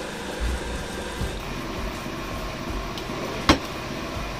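Water poured into a pan of chicken curry on a gas hob, with a steady hiss from the cooking pan. About three and a half seconds in, one sharp clink as the glass lid is set down on the pan.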